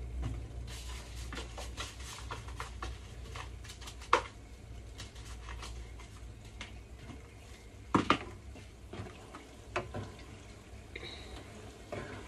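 Cooking utensils clinking and knocking against a frying pan and bowl while fritters fry, with a light crackle of frying and a steady low hum underneath. The loudest knocks come about four seconds in and as a quick double knock about eight seconds in.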